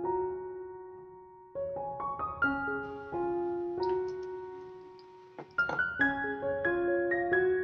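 Background piano music: single notes and chords played slowly, each note dying away, with a short lull about a second in before the playing picks up again.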